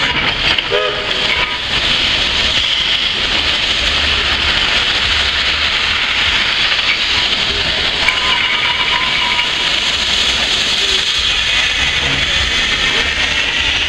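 A 1916 Erie Type B steam shovel working, with a steady, loud hiss of escaping steam over a low rumble as it digs and hoists a dipper of earth.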